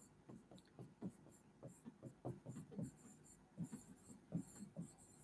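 A pen writing letters on a board: a string of faint, short, scratchy strokes.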